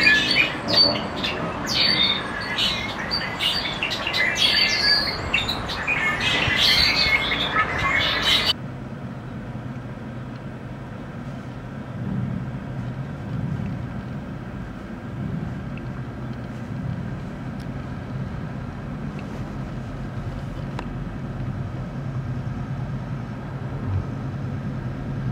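Small birds chirping busily over street noise. About eight seconds in, this changes abruptly to the steady low hum of ARCH motorcycles' V-twin engines idling, slightly louder near the end.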